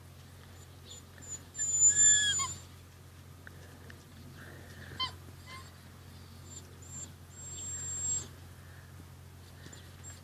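Rhodesian Ridgeback puppies squealing and yelping at play: a loud high squeal about two seconds in, a few short squeaks, then a thin high whine near eight seconds. A steady low hum runs underneath.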